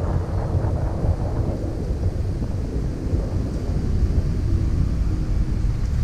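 Wind buffeting the microphone of a camera on a moving electric unicycle, a steady low rumble, with road traffic behind it. A faint whine comes in near the end.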